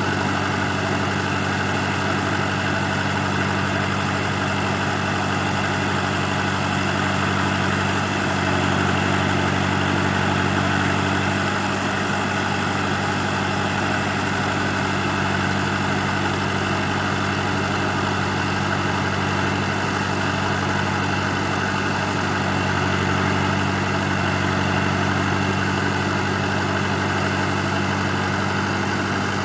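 Ebro 460 tractor's four-cylinder Perkins diesel running at a steady speed while it drives the hydraulic timber crane, swelling slightly louder twice.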